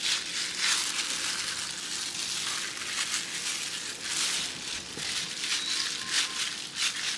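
Thin disposable plastic food glove crinkling and rustling in irregular crackles as a hand massages marinade into raw chicken pieces.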